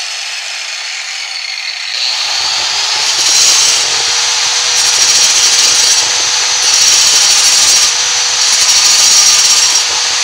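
Makita handheld tile saw with a diamond blade running and grinding along the edge of a ceramic wall tile, rough-bevelling it for a 45° mitre; the load gets heavier from about two seconds in and rises and falls as the blade works the edge.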